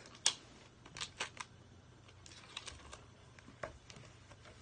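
Rubber bands being pulled off a book: a handful of short sharp snaps and clicks, the loudest just after the start and a quick cluster about a second in.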